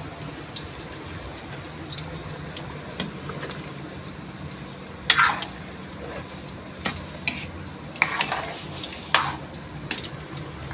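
A metal spoon stirring chicken curry in a pot of thick coconut-milk sauce, with several sharp knocks and scrapes of the spoon against the pot in the second half, over a low steady simmering sizzle.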